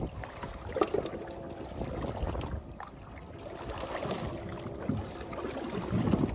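Open-sea ambience aboard a small fishing boat: wind on the microphone and water sloshing against the hull, over a faint steady hum from the boat.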